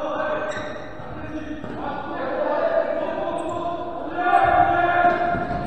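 Voices chanting in long, drawn-out calls in an indoor sports hall, swelling louder near the end.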